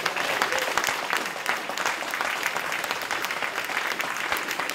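Audience applauding: steady clapping from a roomful of people.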